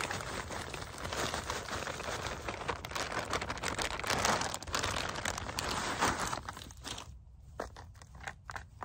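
Plastic bag of potting mix crinkling while soil pours out of it into a planter, a continuous rustle. About seven seconds in it drops to quieter, scattered crackles as the soil is pressed down by hand.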